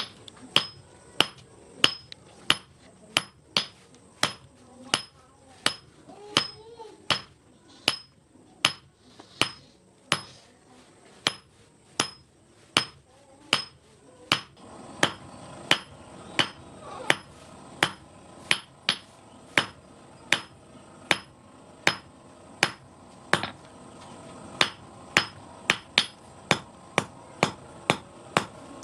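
Blacksmith's hand hammer striking steel on an anvil while forging an S hook: a steady run of sharp blows, each ringing briefly, about one to two a second, quickening to a faster patter near the end.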